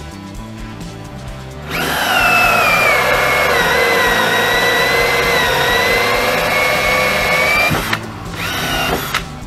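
Cordless drill boring into the plastic deck of a kayak. It runs as one long whine of about six seconds that dips in pitch early and then climbs slightly, followed near the end by a second, shorter burst.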